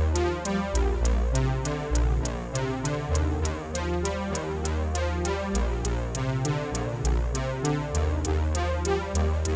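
Electronic background music with a steady beat and a deep bass line.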